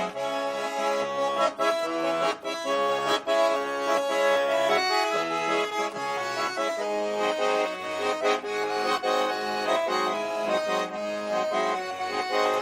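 Instrumental break of a sung Russian song, led by accordion: a melody moving over held chords, with no singing.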